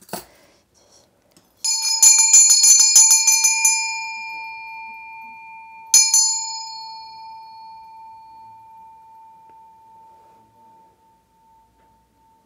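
A shaman's brass hand bell is shaken rapidly for about two seconds, then struck once more about six seconds in. Its clear ring fades slowly away.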